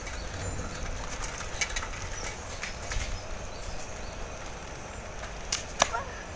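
Outdoor ambience: a steady low rumble with scattered faint clicks and ticks.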